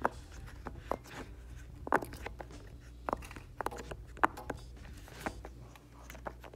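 Silicone pop-it fidget toy being pressed bubble by bubble with the fingertips, giving a string of irregular small pops, roughly two a second.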